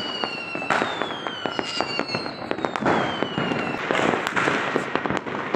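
Fireworks and firecrackers going off all around: many sharp bangs and pops, stretches of crackling, and several long whistles that slowly fall in pitch.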